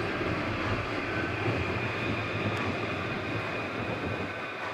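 Street tram running on its track: a steady rumble with a faint high whine.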